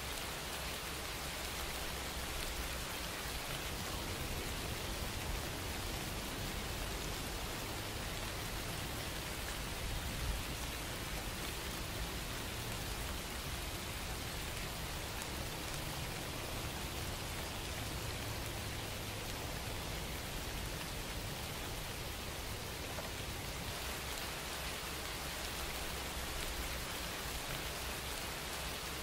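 Steady, even hiss of noise like falling rain, with no music or voice in it.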